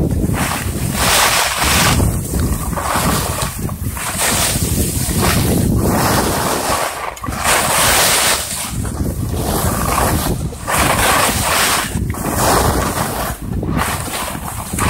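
Wind rushing over the microphone of a skier going downhill, mixed with skis hissing and scraping on packed snow. The noise swells and eases every second or so.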